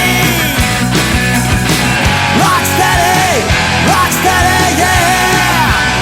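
Loud rock music with a melodic line that bends up and down in pitch.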